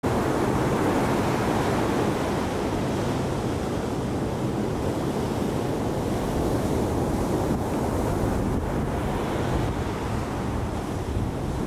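Ocean surf from small shore-break waves breaking, a steady rushing noise, with wind on the microphone.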